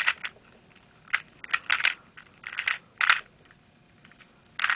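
Plastic 2x2 speed cube being turned by hand: quick clicking and rattling layer turns in short bursts, several to the second at times. There is a pause of over a second before a last burst near the end.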